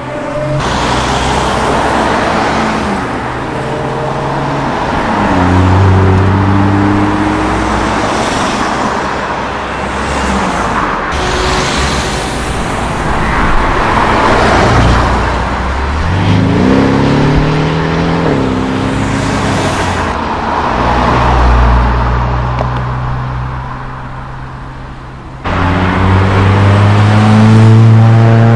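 Cars driving past one after another and accelerating away, their engines rising in pitch as they pull off, with tyre and road noise. In the last few seconds a Honda Civic Type R pulls away, its engine climbing in pitch.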